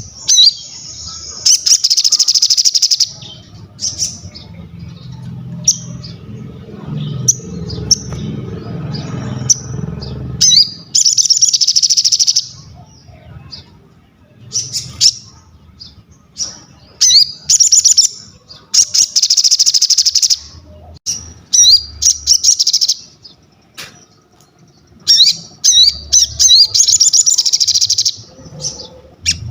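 Sogon (crested jay) calling loudly in repeated high-pitched rattling bursts of about a second each, with short chirps between them. A low rumble runs underneath for several seconds near the start.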